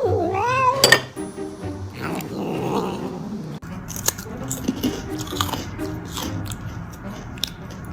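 A cat meows once, a long wavering call in the first second. Then it bites and chews food, with small irregular crunching clicks, over background music.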